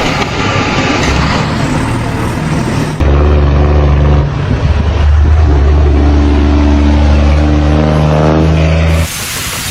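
Engine noise from a vehicle or heavy machine, loud and steady. It cuts abruptly to a different take about three seconds in and again near the end.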